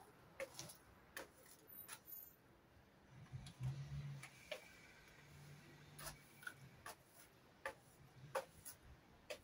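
Faint, scattered clicks and taps of a broom and long-handled plastic dustpan sweeping up dry leaves on a tiled floor. A brief low hum comes in about three and a half seconds in and fades out by about six seconds.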